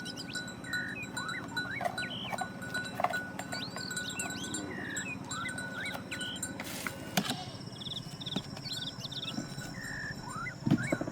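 Birds chirping and whistling, many short calls over a faint steady background. A short hiss about seven seconds in, followed by a sharp knock.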